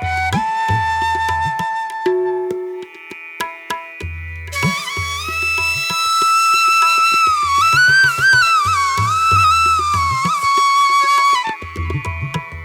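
Background music: an Indian-style bamboo flute melody, held and ornamented, over tabla drum strokes, with a brief quieter gap about two seconds in.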